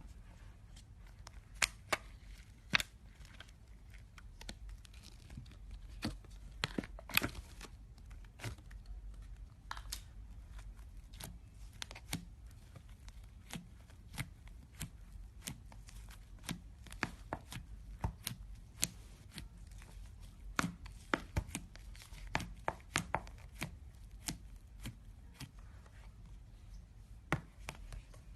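Slime being squeezed and stretched by hand, giving irregular sticky clicks and pops, several a second at times.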